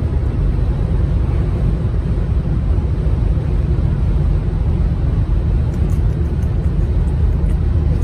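Road noise inside a car's cabin at highway speed: a steady low rumble of tyres and engine.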